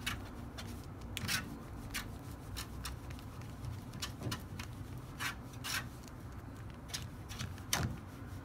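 A handheld duster scraping and swishing against the plastic louvers and grille of a wall air-conditioner unit, brushing dust out of it in a series of irregular strokes, over a low steady hum.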